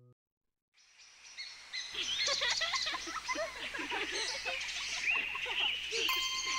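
A chorus of many small birds chirping fades in after a moment of silence and goes on busily. Near the end, a few steady musical notes start over it.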